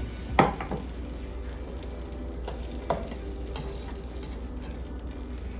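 Chicken drumsticks sizzling in hot oil in a cooking pot, a steady frying hiss. A sharp metallic clank about half a second in and a lighter knock near three seconds.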